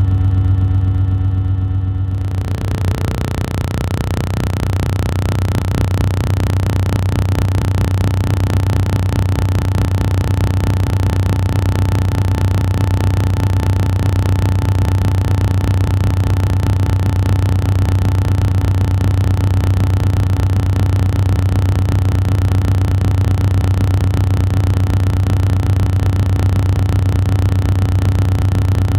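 A loud, steady low hum. About two seconds in, a hiss sets in over it and stays; before that the hum is cleaner and buzzing.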